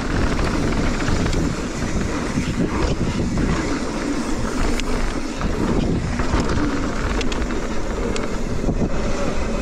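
Mountain bike riding fast down a dirt trail: steady wind buffeting the microphone over the rumble of knobby tyres on dirt, with a few sharp clicks and rattles from the bike.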